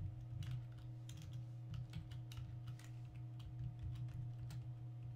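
Typing on a computer keyboard: scattered, irregular keystrokes, over a steady low hum.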